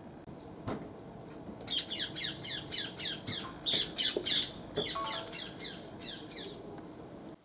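Rose-ringed parakeet screeching: a run of harsh, rapidly repeated downward-sliding calls, about four or five a second, lasting several seconds.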